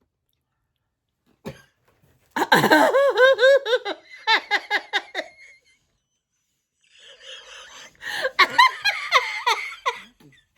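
A person laughing hard in two bouts of rapid, repeated 'ha' pulses, separated by a couple of seconds of quiet.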